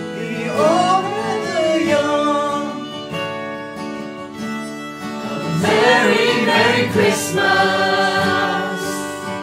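Acoustic guitars and a violin playing a Christmas song while a male lead singer sings a drawn-out, sliding line; about halfway through a group of voices comes in, singing together.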